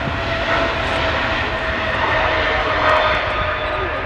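Boeing 777-300 jet engines at takeoff thrust as the airliner accelerates down the runway: a steady roar with a whine that sinks slightly in pitch as the aircraft passes.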